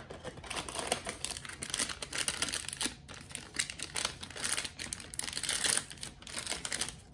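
Plastic blind-bag packet crinkling as it is handled, then torn open, with dense irregular crackling.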